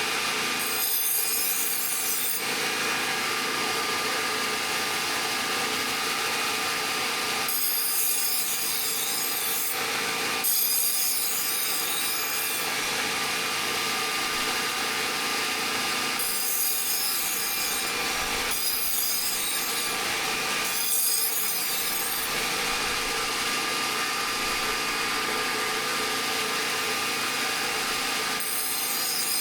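Power tool running steadily as it works the steel of an old saw blade, with a harsher hiss in stretches of a second or two, several times over, as the tool bears on the metal.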